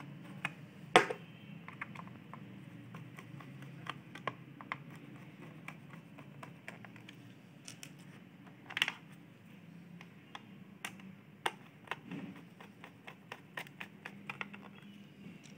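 Small screws being driven into the plastic back cover of an extension board with a small screwdriver: scattered clicks, taps and short scrapes of metal on plastic. There is a sharper knock about a second in and another at around nine seconds.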